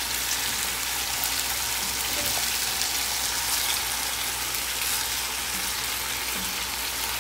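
Cubed pork and chicken sizzling steadily in a pot as their fat renders out, turned now and then with a wooden spatula.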